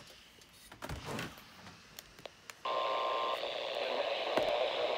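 Radio receiver audio: a few faint clicks, then a little under three seconds in, hissy radio static suddenly cuts in with a short steady tone at its start and carries on steadily.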